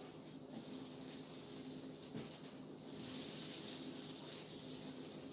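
Sliced steak and vegetables sizzling on a hot Blackstone electric griddle, a steady hiss that grows a little louder about three seconds in.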